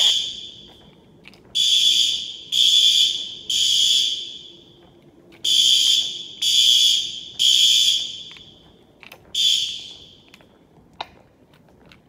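System Sensor SpectrAlert Advance fire alarm horns sounding the temporal-three evacuation pattern: three short blasts, a pause, then three more, each blast echoing down the hallway. They cut off after a single blast of the next round, about nine and a half seconds in, and a faint click follows.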